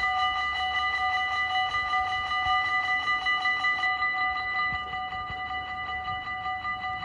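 Dutch level-crossing warning bells ringing in a rapid, even rhythm as the half-barriers come down. About four seconds in, once the barriers are down, the ringing becomes a little quieter and duller but keeps going.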